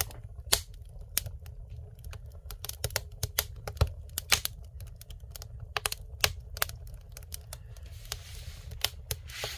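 Wood fire crackling in a fireplace stove lit for the first time: irregular sharp snaps and pops over a low steady rumble, with a soft hiss near the end.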